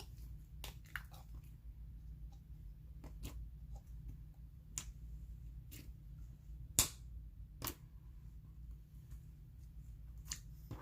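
Hands kneading and poking a glue-based slime mixed with small clay pieces, giving scattered sharp clicks and pops, with one louder pop about seven seconds in, over a low hum.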